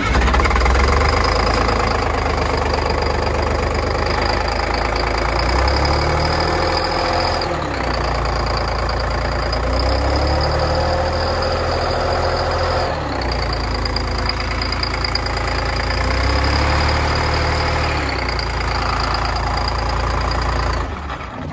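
Detroit Diesel 6V92 two-stroke V6 in an MCI MC9 bus running just after a cold start, its speed picking up and dropping back a few times, then shut down near the end. Some cylinders on one bank are not firing, which the owner puts down to a sticking fuel rack or injectors on that bank.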